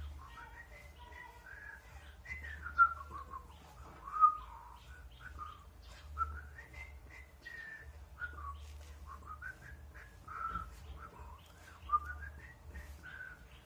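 A woman whistling softly to herself, a slow wandering tune of short notes gliding up and down.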